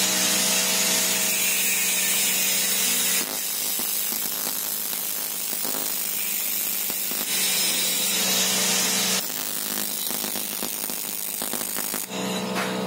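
AC TIG welding arc on an aluminium bicycle frame tube: a steady buzzing hiss, shifting in tone every few seconds as the weld goes on.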